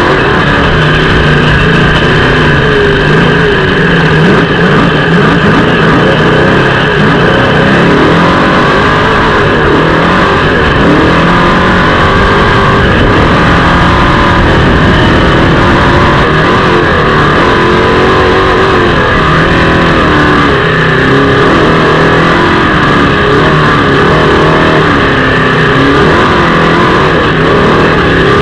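Trophy truck's engine running hard at race pace, loud and without a break, its pitch rising and falling with the throttle.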